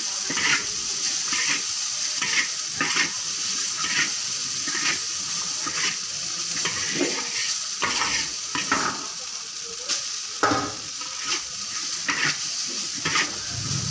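Noodles sizzling on a large, hot, oiled pan as bare hands lift, toss and drop them. The sizzle is a steady hiss, broken by soft rustling strokes about every half second.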